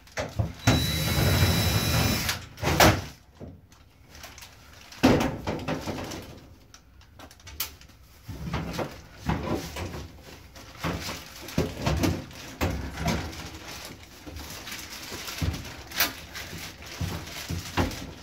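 Handling noise from a wall-mounted network wiring panel as a network switch and its cables are worked loose and pulled out: a loud noise lasting about a second and a half near the start, then scattered clicks, knocks and rattles of plastic and cables.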